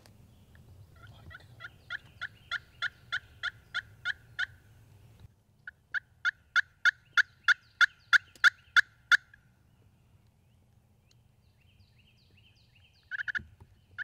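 A turkey call worked by a hunter, sounding two strings of hen yelps at about three a second, the second string louder. A short burst of calling follows near the end.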